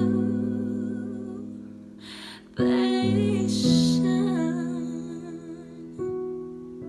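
Piano accompaniment under a teenage girl's singing voice holding long notes with vibrato; a new chord comes in about two and a half seconds in.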